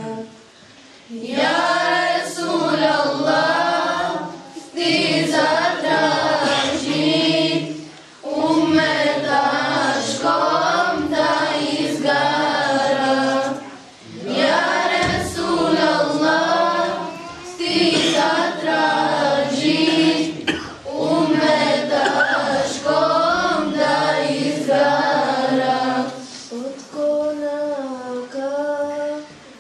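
A group of children singing an ilahija, an Islamic devotional hymn, together and unaccompanied. The lines come in phrases of a few seconds with short breaths between them, and the singing grows quieter and thinner near the end.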